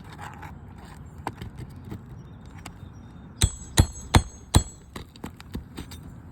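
Four quick hammer strikes on metal, about 0.4 s apart, each with a short high ring, amid light tapping and scraping on roofing shingles.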